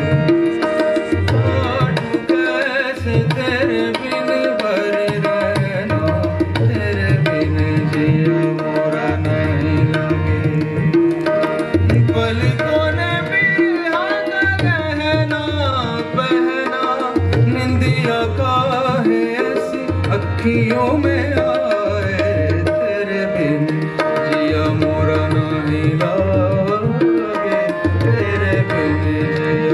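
Live Sufi music: tabla playing a steady rhythm under the sustained chords of two harmoniums, with a male voice singing melodic runs, most prominent around the middle.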